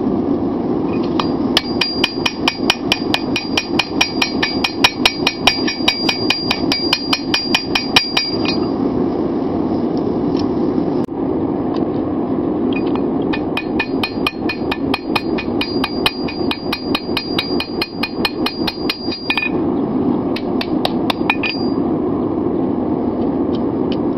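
Blacksmith's hand hammer striking hot 5160 steel on an anvil in two runs of quick, even blows, about four a second, the anvil ringing with each blow, with a few last strikes near the end. A steady low rumble runs underneath throughout.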